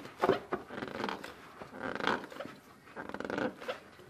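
Hands gripping and twisting a spin-on oil filter up tight, with irregular rubbing and scraping, clicks, and a few short throaty sounds around the middle.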